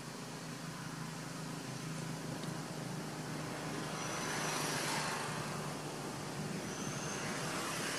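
Distant road traffic: a steady low hum with a vehicle passing, swelling about halfway through and fading. Two short high chirps cut through it, one about four seconds in and one about seven seconds in.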